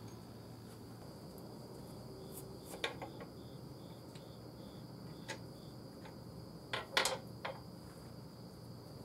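A few sharp knocks and clicks as a finished wooden bowl is handled and lifted off a stopped wood lathe's chuck, the loudest cluster about seven seconds in. A steady, faint, high-pitched whine runs underneath.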